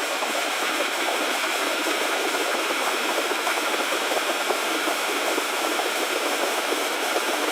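Water lapping and sloshing against the hull of a rocking boat: a steady, dense patter of small splashes over a constant hiss.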